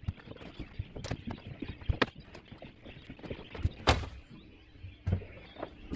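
Fish being set down and shifted on a fiberglass boat deck: scattered knocks and thuds, roughly one a second, over a faint steady background.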